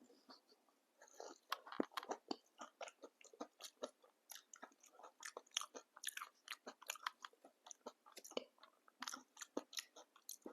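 Close-up mouth sounds of a person chewing papdi chaat, the crisp fried papdi wafers crunching in many quick, irregular crackles.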